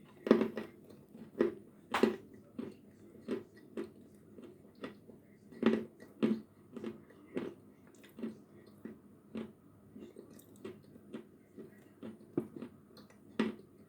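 Close-up crunching and chewing of a piece of Chernyanka edible chalk coated in blue Uzbek clay paste. It makes a steady run of crisp crunches, about two a second. The loudest come near the start, about two seconds in and about six seconds in.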